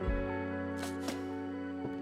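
Background music with a steady beat: held bass and chord tones under sharp drum hits, with a low kick at the start.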